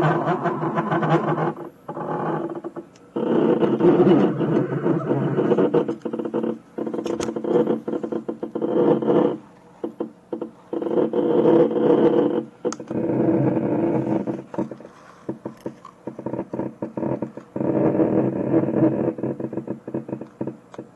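CNC router's stepper motors whining in repeated bursts of one to three seconds with short pauses between them, the same steady pitch each time, as the axes are jogged into position.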